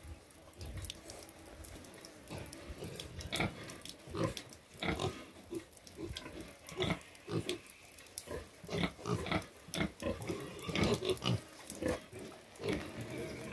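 Pigs grunting: short, repeated grunts, many in quick succession from about three seconds in.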